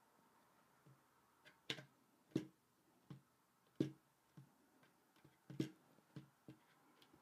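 Scattered small clicks and taps as fingers seat a WiFi card and its small bracket in a motherboard slot. There are about half a dozen, the sharpest between about two and four seconds in.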